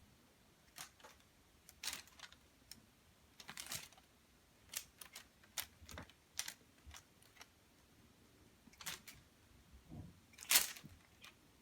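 Irregular light taps and clicks, about a dozen, from a cat batting and pouncing on a bug toy on a hard surface; the loudest tap comes near the end.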